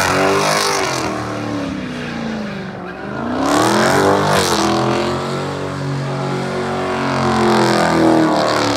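Dodge Challenger Scat Pack's 6.4-litre HEMI V8 revving hard through a burnout donut, its pitch climbing and dropping twice before holding high, with the rear tyres spinning and hissing on the pavement.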